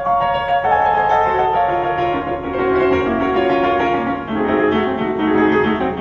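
Background piano music, slow sustained notes at a steady level, beginning to fade near the end.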